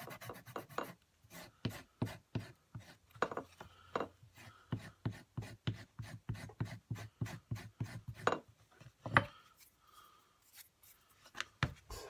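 Four-in-hand rasp scraping back and forth over the smooth grain side of a leather strip against a wooden board, a quick run of short rasping strokes about three a second, scuffing the leather so it will take glue. A few sharper knocks come near the end.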